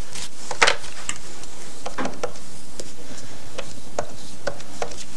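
Scattered light clinks and taps of plates and cutlery being handled at a kitchen table, about eight in all, the sharpest under a second in, over a steady hiss.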